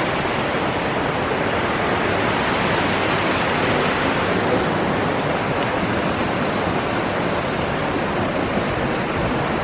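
Heavy rain and strong wind: a steady, even rushing hiss.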